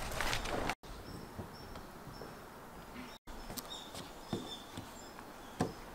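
Small birds chirping in short, high, repeated calls over quiet outdoor ambience, with a few light clicks and knocks. A brief rustle of handling comes at the very start.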